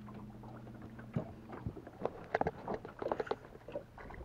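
Irregular splashing and knocking as a caught bass is lowered over the side of an aluminum boat and released into the water, over a steady low hum that stops about one and a half seconds in.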